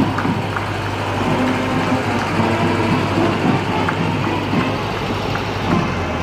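Motor vehicle engine running slowly, a steady low hum, with faint voices over it.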